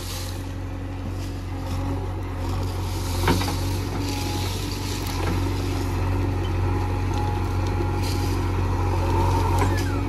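JCB 3DX backhoe loader's diesel engine running steadily under digging load as the backhoe scoops and lifts soil, getting a little louder about halfway through, with a single knock about three seconds in.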